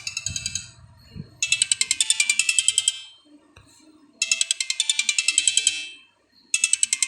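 Mobile phone ringtone: bursts of rapid, high tinkling pulses, about eight a second, each burst lasting about a second and a half and repeating after a short pause.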